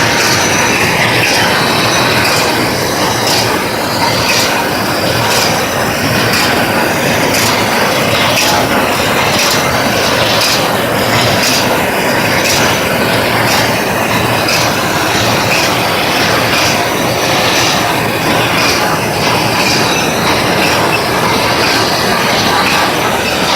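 Rotary-drum PP woven-bag cutting machine running: a loud, steady mechanical clatter with sharp clacks repeating at a regular beat.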